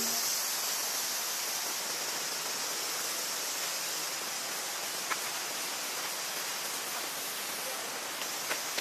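Steady, even outdoor hiss like running water or rain, with a faint click about five seconds in and another near the end.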